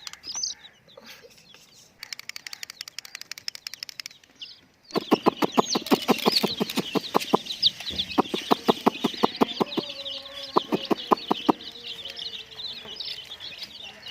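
A crowd of young chicks peeping in short, high cheeps, thickest from about five seconds in. Under them runs a fine fast ticking in the first few seconds, then a stronger regular clicking at about six clicks a second that stops a few seconds before the end.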